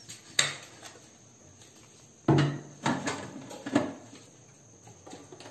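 Stainless-steel mixer-grinder jar being handled: its lid pressed shut and the jar set down and fitted onto the motor base, giving a few knocks and clicks, the loudest a little over two seconds in.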